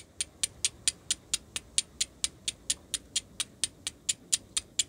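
Hardened steel file striker struck rapidly down the edge of a white rock to throw sparks: an even run of short, sharp scraping strikes, about four and a half a second. The striker is making plenty of sparks.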